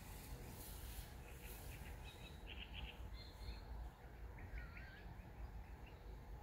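A few faint bird chirps and one short wavering whistled call over a steady low rumble.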